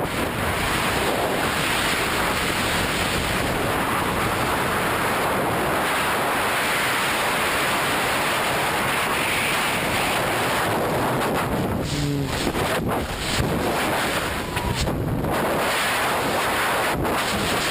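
Strong wind rushing steadily over the microphone in flight, a constant loud noise with a few brief dips.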